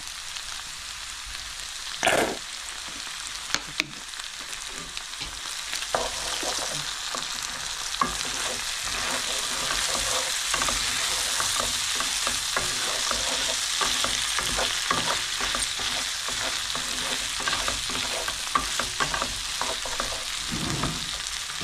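Chicken and vegetables sizzling in a nonstick wok while a wooden spatula stirs them, with many small scrapes and taps on the pan. There is one louder knock about two seconds in, and the sizzling grows louder after about six seconds.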